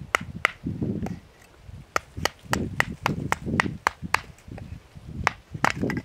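Sharp wooden cracks and knocks of firewood being worked by hand, about a dozen of them in quick runs, over a low crunching.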